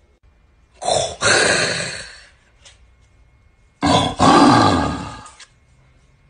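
A man roaring into an empty cardboard paper-towel tube, twice, about three seconds apart. Each roar starts with a short blast that breaks off, then a longer one that fades out.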